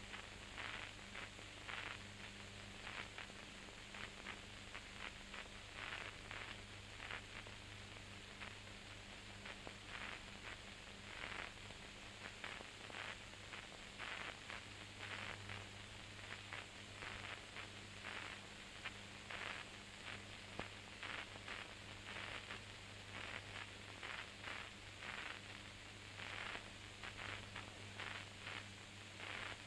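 Faint hiss and irregular crackling of old recording noise over a steady low hum, with no voice or music.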